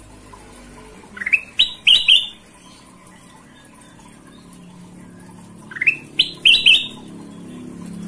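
Caged kutilang emas (black-crested bulbul, Pycnonotus melanicterus) singing two short phrases of four or five quick rising notes, the first about a second in and the second near six seconds.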